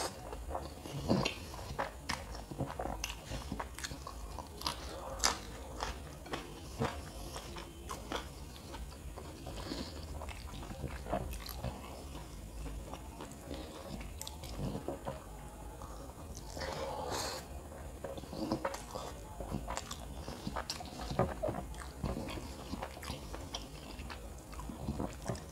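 Close-miked chewing of kottu roti and egg: a man eating by hand, with irregular sharp wet clicks and smacks from his mouth.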